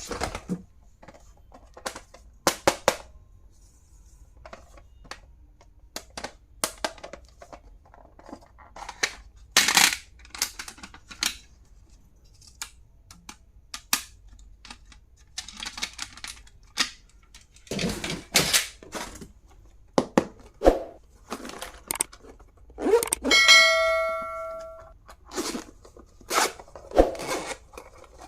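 Small objects being unpacked and handled: a string of sharp clicks, taps and rustles, and one metallic ring near the end that fades out over about a second and a half.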